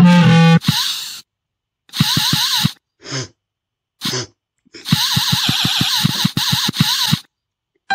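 Stifled laughter: breathy, snorting bursts pulsing about five or six times a second, in short spells with silences between, after a brief low vocal grunt at the start.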